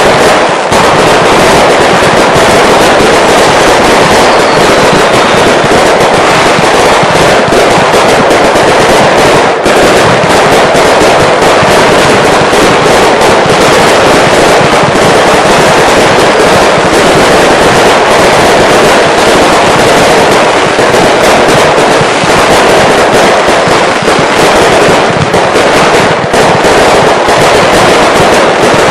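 Consumer fireworks finale: a continuous, dense barrage of bangs and crackling with no let-up, so loud the recording sits at the top of its range.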